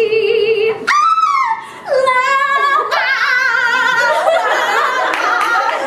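A woman singing with heavy vibrato: a held note, then a high note that slides down about a second in, then wavering high notes.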